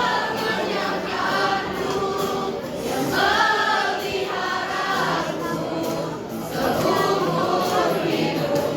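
A junior high school choir singing together.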